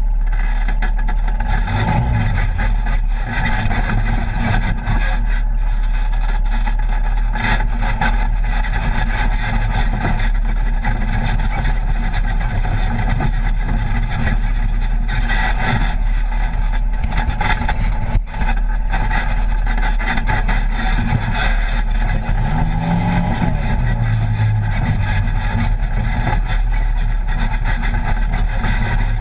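Polaris RZR side-by-side's engine running under way on a rough dirt trail, heard from inside the open cab, with many short knocks and rattles over the ground. The engine note rises and falls briefly a bit over twenty seconds in.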